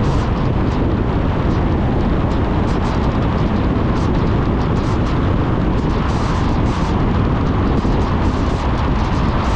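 A car driving along an unpaved country road: a steady low rumble of engine and tyres with wind noise, and scattered brief sharper rushes over the top.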